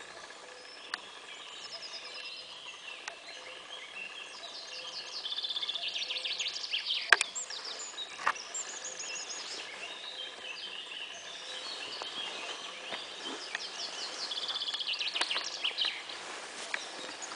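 Several songbirds singing in woodland, overlapping phrases with rapid trills that swell twice. A single sharp click about seven seconds in, with a fainter one a second later.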